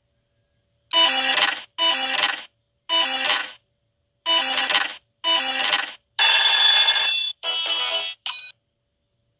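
Electronic sound effects of the Treasure Jewels slot-machine game: five short, matching chiming jingles about a second apart, then a longer, brighter jingle and two short ones near the end.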